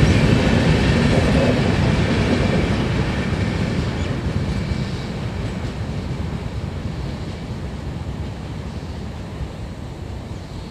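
A long passenger train of LHB coaches running past on the rails. The rumble of its wheels fades steadily as the last coach pulls away into the distance.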